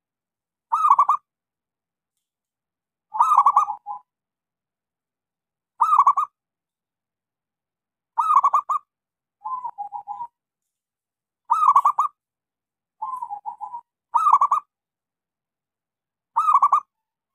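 Zebra dove (local perkutut) cooing in short, separate staccato phrases, about one every two seconds. Two phrases in the middle are softer, lower and trilled.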